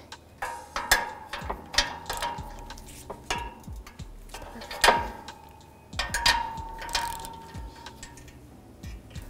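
Hand ratchet with a 17 mm socket clicking in short strokes as the exhaust flange lock nuts are given a final tightening check. Metal clinks with brief ringing follow a few of the strokes.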